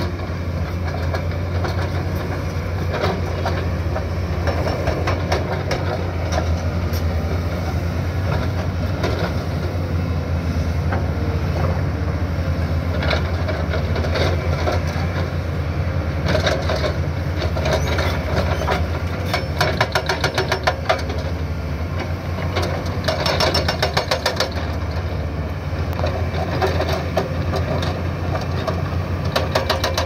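Hydraulic breakers on two SANY SY335C excavators pounding asphalt blocks with rapid repeated blows, over the steady low drone of the excavators' diesel engines. The hammering comes and goes in spells, heaviest in the second half.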